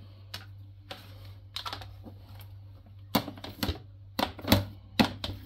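Irregular light clicks and taps of a kitchen knife and peeler being handled and pumpkin halves being set against a plastic cutting board, a few at first and more frequent and louder in the second half, over a steady low hum.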